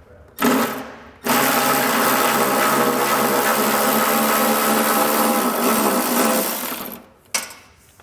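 Cordless power ratchet spinning out a frame ground bolt: a short blip, then a steady motor whine for about five and a half seconds that tapers off near the end as the bolt comes loose.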